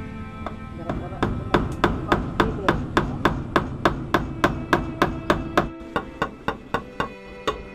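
Claw hammer driving small nails through mesh netting into a wooden post: quick, light blows, about three to four a second. Faint background music underneath.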